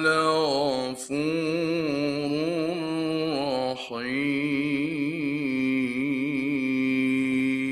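A man reciting the Quran in a melodic, drawn-out chant, his voice wavering through ornamented notes. It breaks off briefly about a second in and again near four seconds, then holds one long, steady note for about four seconds.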